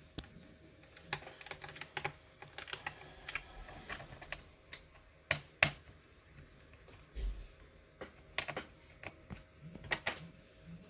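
Irregular small clicks and taps of a screwdriver working the screws out of a laptop's bottom cover, with one sharper click about five and a half seconds in.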